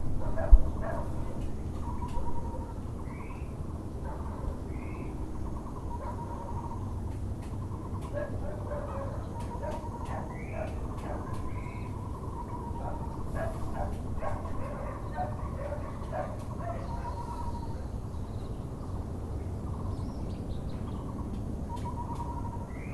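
Müller's barbet (Taiwan barbet) calling in runs of rapidly repeated notes, again and again, while other birds give short chirps over a steady low background rumble. A single sharp knock sounds just after the start.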